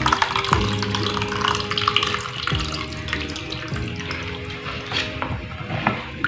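Nata de coco and its liquid pouring from a plastic pouch into a bowl of melon and jelly mixture, a steady splashing pour that fades after about four seconds. Background music plays underneath.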